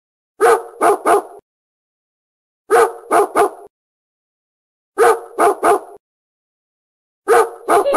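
Dog barking in bursts of three quick barks, the same burst repeating four times about every two and a quarter seconds with silence between.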